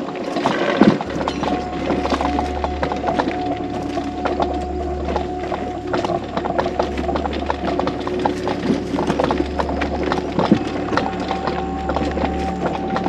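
Electric mobility scooter jolting over a rough dirt trail: many irregular knocks and rattles from the frame and wheels over a steady low hum that starts about a second in.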